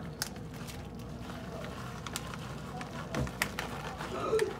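Light crinkles and ticks from a plastic bag of shredded cheese being shaken over a casserole dish, with one dull thump about three seconds in.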